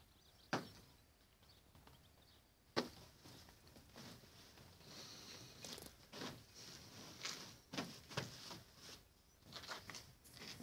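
A horse's pack saddle and its cloth cover being handled and fitted: scattered knocks and thumps, two sharp ones about half a second in and near three seconds, then a run of irregular clicks and rustling.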